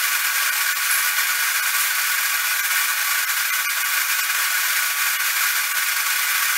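Arc welding on 16-gauge sheet steel: a steady, unbroken hiss with a faint crackle from the welding arc as a seam of a small gas tank is laid.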